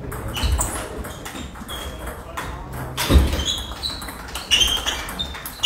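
Table tennis rally: a ball clicking sharply off the bats and the table, several hits a second apart, each with a short high ring that echoes in a large hall. A heavier thump about three seconds in is the loudest sound.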